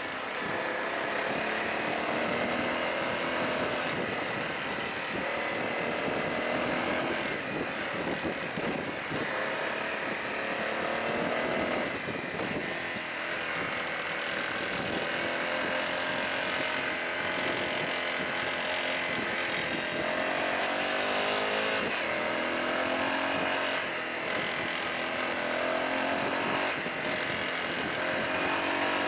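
Honda CRF250L's single-cylinder four-stroke engine running while riding, its revs climbing and dropping several times as the throttle and gears change, with tyres crunching over a gravel road.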